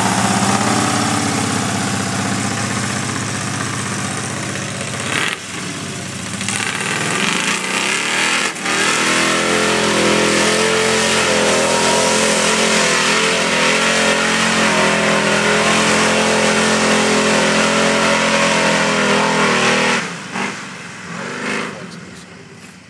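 Lifted square-body pickup's engine revving hard under load as the truck churns through a mud hole. The engine fades sharply about twenty seconds in as the truck drives away.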